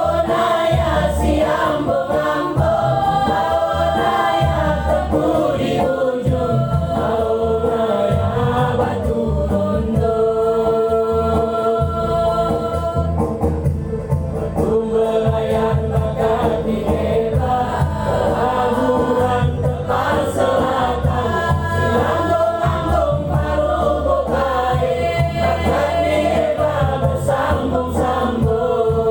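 A choir singing long held chords over a steady low instrumental accompaniment.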